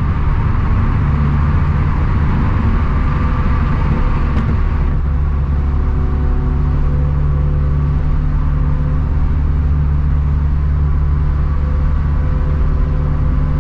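Turbocharged 2013 Scion FR-S flat-four boxer engine, fitted with a catless front pipe and quad-tip catback exhaust, running at a steady speed as a constant low drone heard from inside the cabin.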